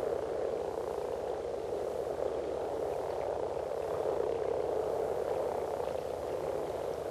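A breeding chorus of over a hundred male common frogs calling together in the water: a dense, steady low growling. Common frog males have internal vocal sacs, so their mating call comes out only as a growl rather than a ringing croak.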